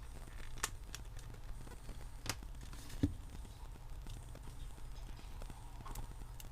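A few light clicks and taps of small parts being handled as a screw is undone and the faulty hands-free speaker is lifted out of a Panasonic cordless phone handset, over a steady low hum.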